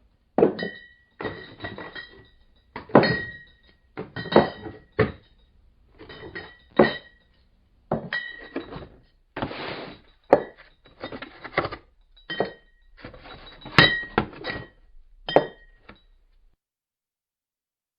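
Empty glass beer bottles in a cardboard case being knocked about, clinking and thudding against each other. The hits come in irregular bursts about once a second, each with a short glassy ring, and stop near the end.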